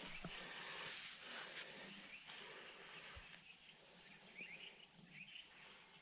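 Insects chirping in a faint, steady, high-pitched chorus, with a few brief higher chirps a little past the middle.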